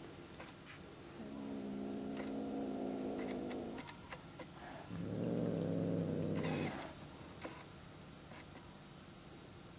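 Black kitten calling twice with drawn-out, steady-pitched cries, the second lower and louder.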